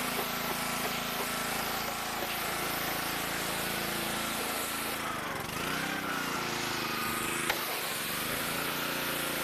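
Gas pressure washer's small engine running steadily under a hiss of water spray. The engine note dips briefly about halfway through, then recovers.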